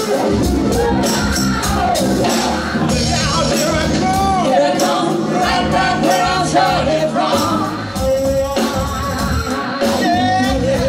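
Live band playing a song: a man singing lead over electric guitar, bass and drums.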